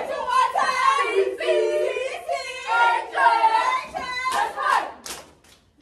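Group of cheerleaders chanting a sing-song cheer in unison, the voices rising and falling in rhythm, with a few short sharp sounds near the end.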